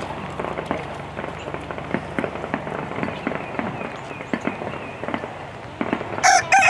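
Scattered small crackling clicks, then near the end a rooster starts crowing loudly.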